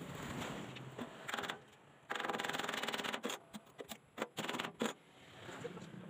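Scraping and brushing on a fresh weld on a steel sidecar frame, likely cleaning off welding slag. It comes in bursts of rapid strokes: a short one about a second in, a longer stretch from about two to three seconds, then several short ones.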